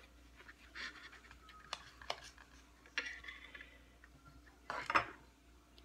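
Table knife cutting through a baked biscuit and clicking and scraping against a ceramic plate in short, scattered strokes, with a louder scrape near the end.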